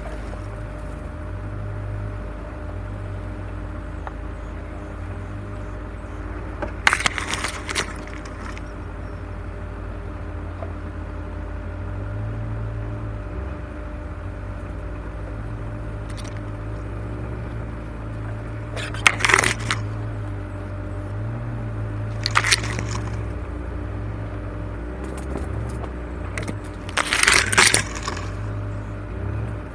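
Off-road vehicle's engine running low and steady, broken four times by short bursts of sharp crackling and rattling.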